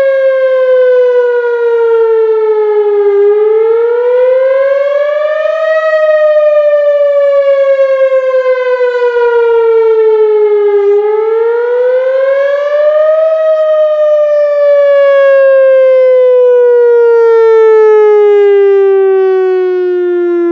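Whelen WPS-4000 electronic tornado siren sounding its Wail signal in a test: a loud tone sliding slowly down, then up, over and over. It falls, rises, falls for several seconds, rises again, and is gliding down once more near the end.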